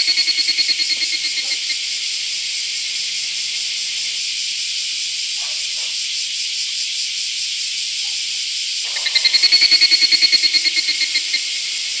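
Cicadas buzzing: a dense, high-pitched drone that holds steady, with a rapidly pulsing call swelling in at the start and again from about nine seconds in.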